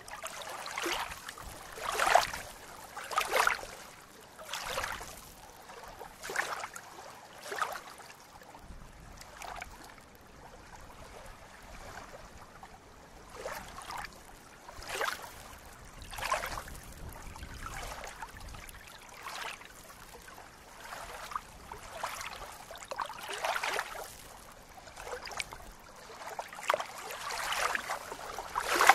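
Small waves lapping and splashing at a reedy lake shore, in irregular splashes about once a second, with a quieter spell near the middle.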